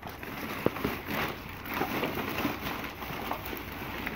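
Black plastic garbage bag rustling and crinkling as hands rummage through it, with a sharp knock about two-thirds of a second in.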